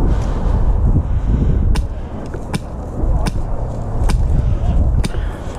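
Airsoft guns firing single shots as sharp cracks, five in all, about one every second, over a heavy low rumble of wind or handling noise on the microphone.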